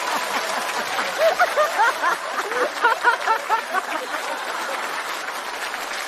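Studio audience laughing, many voices at once, with some clapping mixed in. The laughter is busiest in the first few seconds and then dies down.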